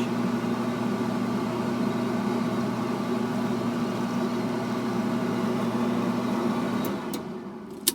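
Whirlpool electric dryer running with its drum turning: a steady motor hum that fades about seven seconds in, followed by a sharp click at the end. The dryer runs but gets no heat, because the control-board relay is sending no voltage to the heating element.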